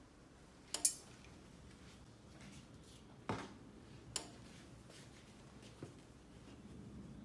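Garments being handled on a heat press: a few sharp clicks and taps, the loudest about a second in, with soft rustling of fabric between them.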